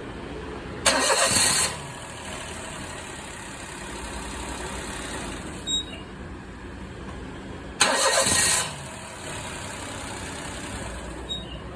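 Daihatsu Tanto's engine being started twice: each time a short, loud burst of starter cranking under a second long, about seven seconds apart, with a low steady running sound between.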